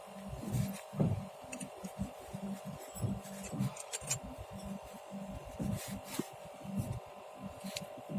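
Flaring tool being cranked on a copper air-conditioner refrigerant pipe to form a new flare: irregular low creaks and knocks with a few sharp clicks, over a steady hum.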